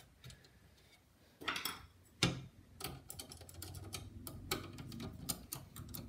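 A hard drive knocks once into a desktop PC's sheet-metal drive cage, then a screw is driven into the cage with a run of light, irregular metal clicks and ticks.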